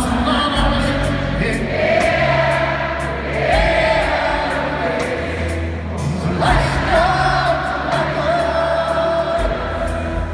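Live music in a large arena: long held sung notes with vibrato over piano and double bass.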